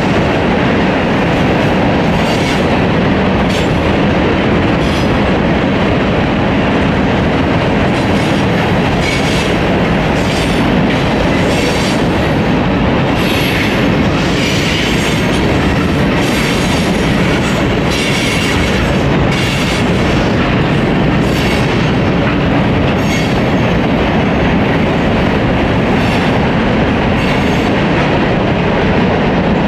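CSX freight train of tank cars rolling past at speed: a steady heavy rumble of steel wheels on rail, with irregular clicking and clatter as the wheels cross rail joints, busiest about halfway through.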